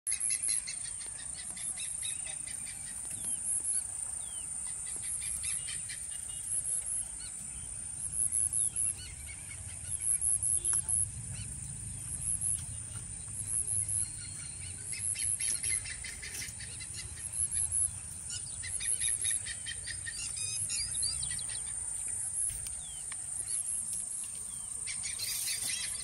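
Outdoor ambience of birds calling and chirping, with short chirps and gliding calls scattered throughout, over a steady high-pitched whine that pulses every second or two.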